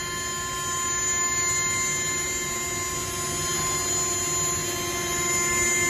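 CNC router's 9 kW spindle running at high speed and cutting a wood board: a steady whine made of several tones over a rushing cutting noise, at fairly even loudness.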